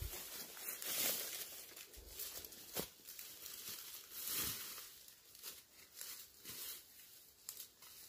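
Footsteps in rubber boots crunching through dry leaf litter and brushing past undergrowth, an irregular rustle about once a second.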